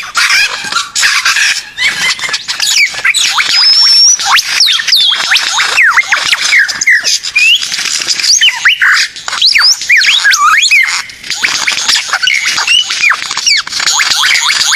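Bird song: a dense, rapid run of varied high chirps and sliding whistles, one call quickly following another.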